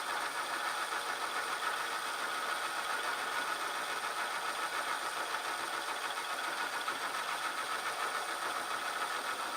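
Metal-turning lathe running steadily as the cutting tool takes a light skim off a rusty metal part, cleaning off the surface rust.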